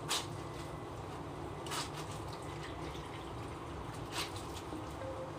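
Clothes being hand-washed in a basin: a wet cotton garment rubbed and squeezed in water, with three short wet swishes, about a second in, near two seconds and past four seconds, over a steady low background noise.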